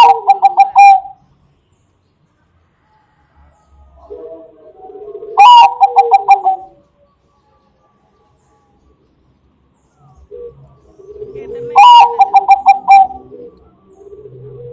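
Bangkok-strain zebra dove (perkutut) singing: three song phrases about six seconds apart. Each phrase is a soft low coo that runs into a loud, fast series of ringing notes.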